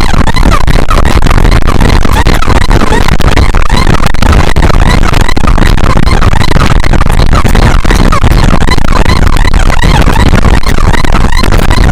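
A loud, dense jumble of traffic and wind rumble with music mixed in.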